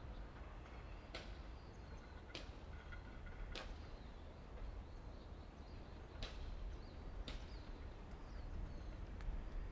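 Faint birdsong: five sharp short calls spaced about a second or more apart, and a few thin high chirps, over a low steady rumble.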